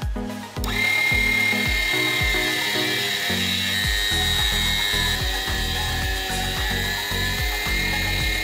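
Motor of a T4 mini table saw starting about a second in and running with a steady high whine, turning a hollow bit in a drill chuck that cuts into plywood. Background music with a steady beat plays throughout.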